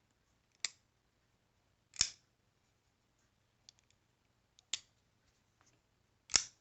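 CRKT Pilar III frame-lock folding knife being opened and closed: four sharp clicks a second or two apart, the second and the last the loudest.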